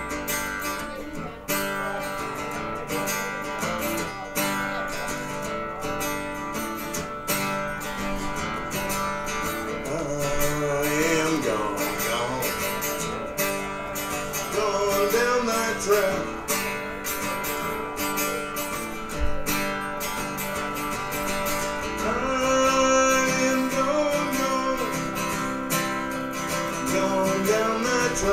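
Live band playing an instrumental blues passage: steadily strummed guitar, with a lead melody that bends and wavers in pitch over it in two stretches, around the middle and again near the end.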